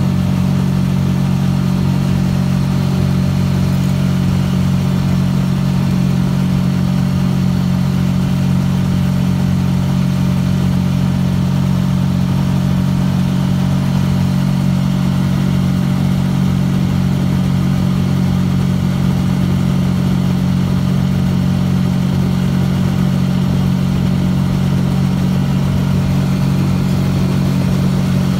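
Small engine of a motorized canoe running steadily under way, a loud low hum that holds one pitch with no change in throttle.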